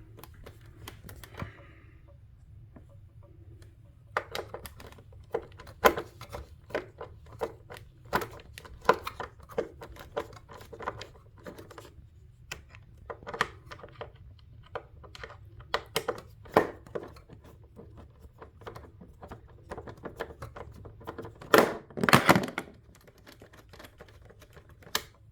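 Irregular clicking and light knocking of a hand screwdriver turning a screw out of a monitor stand's mount, with handling knocks on the metal and plastic. A louder cluster of knocks comes near the end.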